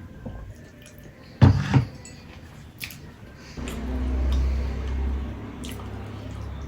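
Close-miked eating sounds: a loud, sudden bite or clatter about one and a half seconds in, then a low rumble of chewing in the second half.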